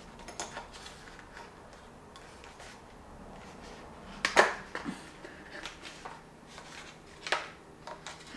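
Scattered small clicks and knocks of a die-cast model spaceship being handled and fitted onto its display stand, the loudest knock about four seconds in.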